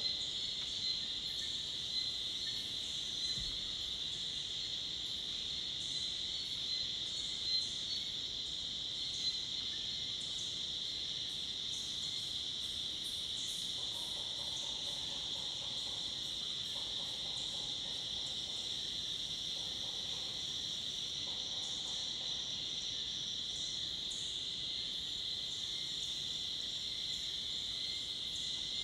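Dense chorus of forest cicadas and crickets: a steady high-pitched shrill with faster chirping above it. A faint lower call joins about halfway through for several seconds.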